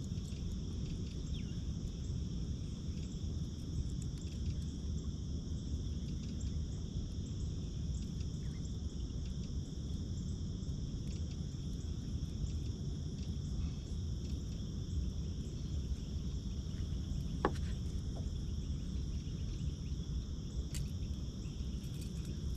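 A steady chorus of insects, a constant high-pitched drone that holds unchanged, over a low rumble of background noise. A faint tick sounds about two-thirds of the way through.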